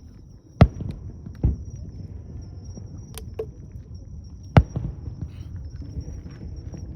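Fireworks shells bursting: a loud boom about half a second in, a second boom a second later, two smaller cracks around three seconds, and another loud boom past four and a half seconds.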